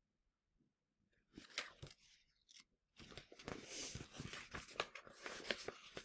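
Paper pages of a picture book rustling and crinkling as they are handled and turned. It starts with scattered crackles about a second in and grows into busy rustling over the last three seconds.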